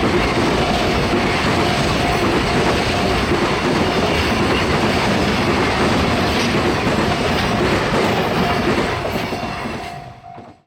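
Freight train wagons rolling past at close range, wheels clattering over the rail joints, with a level-crossing bell ringing faintly in the background. The sound falls away near the end.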